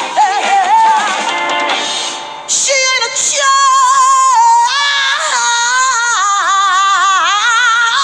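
A woman singing soul, holding a long high note that bends and wavers from about three seconds in.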